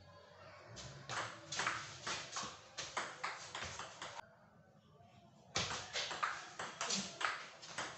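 Table tennis rally: the ping-pong ball clicking in quick succession off the paddles and the table. After a pause of about a second and a half, a second rally starts.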